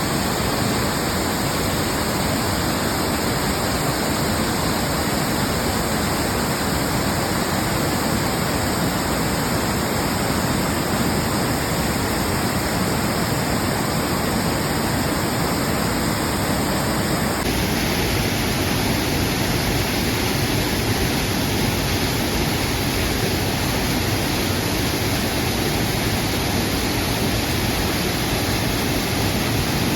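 Fudō no Taki waterfall pouring steadily: a constant, even rush of falling water. Its tone changes abruptly a little over halfway through.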